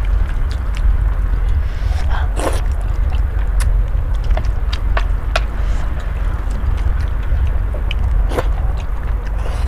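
Instant noodles being slurped with chopsticks, twice, about two and a half seconds in and again near the end, with many small clicks between, over a steady low rumble.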